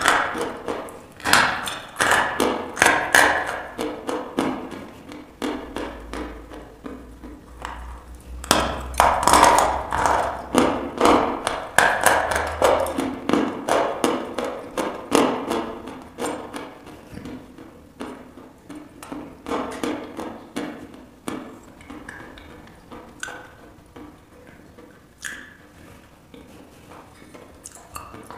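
Dry crunching and chewing of a mouthful of white chalk, picked up close by a clip-on microphone: quick runs of sharp, crisp crunches. The crunching is loudest at the start and again from about eight seconds in, then thins to softer, sparser chews near the end.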